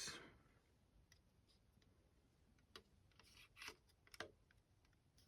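Faint clicks and taps of hard plastic model-kit parts being handled, a handful of them scattered through the middle of an otherwise near-silent stretch.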